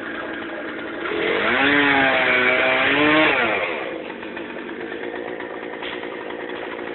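Chainsaw revving up about a second in, running at high speed for about two seconds, then dropping back to idle, over the steady idle of the bucket truck's engine.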